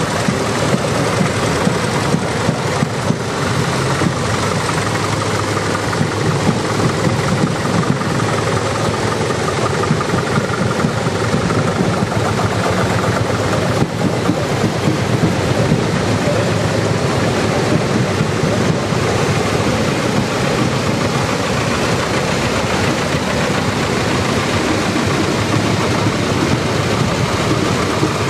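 Engines of several vintage tractors, among them a Lanz Bulldog, running steadily as the tractors drive past one after another.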